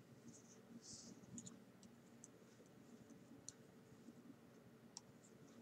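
Faint, irregular clicks of metal knitting needles touching as stitches are worked, over near silence, with a soft rustle of yarn about a second in.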